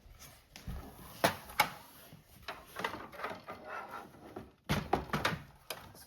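Plastic toy barn parts handled and pressed onto their mounting studs: light rustling, with two sharp knocks about a second and a half in and a cluster of clattering knocks near the end.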